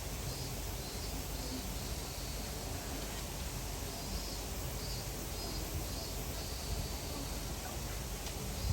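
Outdoor ambience: a steady low background rumble with faint, short high chirps repeating irregularly throughout.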